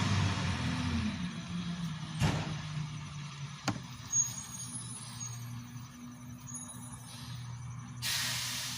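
A motor vehicle's engine running steadily with a low hum, marked by two sharp clicks in the first four seconds and a short hiss near the end.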